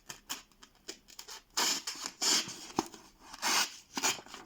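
Smith & Wesson folding knife blade cutting through material in several uneven scratchy strokes, with a sharp click near the middle.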